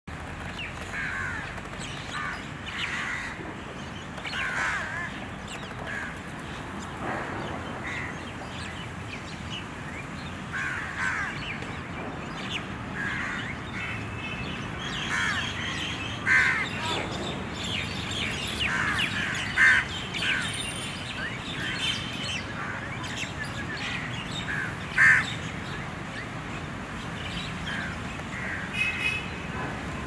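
Birds calling: a steady scatter of short chirps and calls over outdoor ambience, with a few louder calls standing out about 16, 20 and 25 seconds in.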